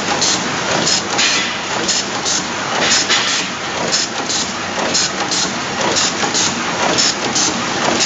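Automatic three-sided two-wire crimping machine (WPM 038F) running steadily through its cycle, with short hisses and clacks about twice a second as it feeds, crimps and ejects wires.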